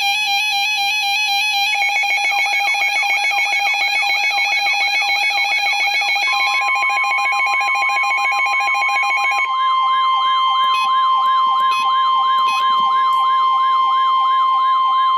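Layered electronic weather-alert alarms: a warbling beeper tone, joined about two seconds in by a rapidly repeating siren-like sweep. About six seconds in, a steady single-pitch tone of the NOAA Weather Radio warning-alarm kind comes in. The warbling beeper drops out about nine seconds in, leaving the sweep and the steady tone.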